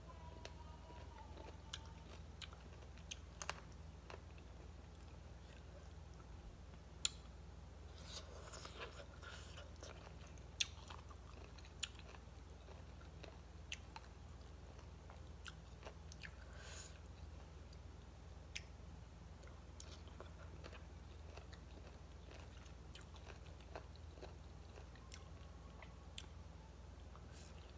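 Faint, close chewing and biting of crunchy green mango salad, with scattered sharp crisp clicks and a few short noisy stretches of crunching.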